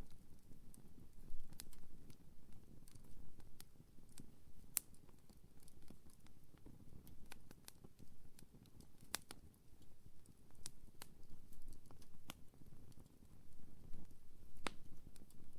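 Firewood campfire crackling: irregular sharp pops and snaps, a few of them louder, over a low steady rumble from the burning fire.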